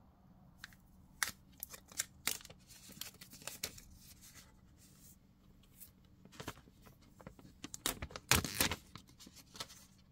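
Plastic protective film being picked at and peeled off a Xiaomi 13T Pro smartphone: scattered small crackles and ticks, then a longer, louder crackling peel about eight seconds in.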